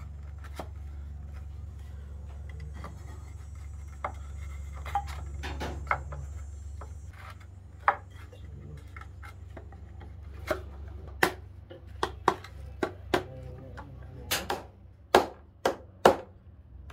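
Pine boards of a wooden bed frame knocking against each other as slats are set into the rails and the joints are driven together: scattered taps at first, then about a dozen sharper knocks over the last six seconds. A steady low hum runs underneath.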